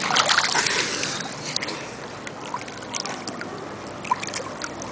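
Swimming-pool water splashing and lapping close to the microphone, loudest in the first second, then a softer wash of water with scattered small splashes.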